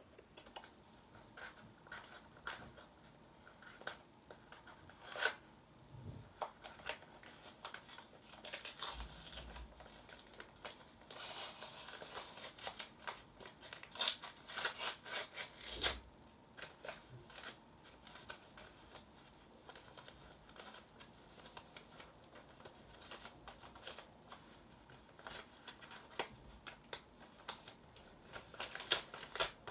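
Paper envelope and packaging being opened and handled by hand: faint, scattered rustling, tearing and small clicks of paper, busiest from about eleven to sixteen seconds in.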